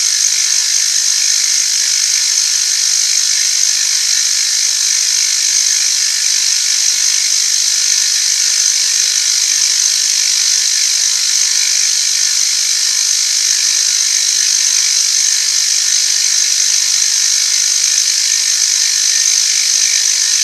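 Machine tool running steadily while cutting metal, a continuous high-pitched hiss with a fast, even pulsing underneath.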